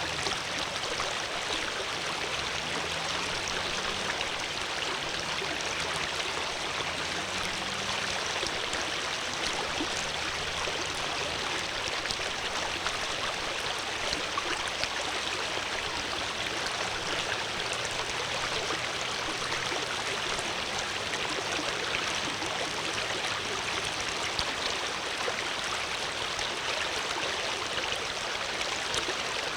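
Flowing water rushing steadily and evenly, like a stream running over rocks.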